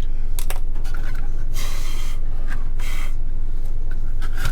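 Steady low electrical hum, with a few light clicks at the start and two short hissing bursts about one and a half and three seconds in.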